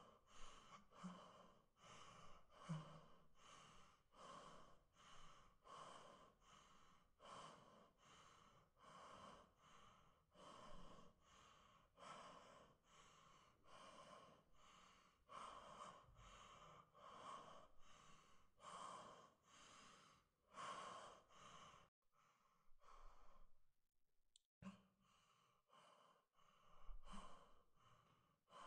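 A young woman's quiet, fast breathing, about one and a half breaths a second, with two short breaks near the end. It is the breathing of someone frightened.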